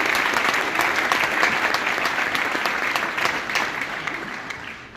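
Large audience applauding, a dense clatter of many hands clapping that thins out and fades away near the end.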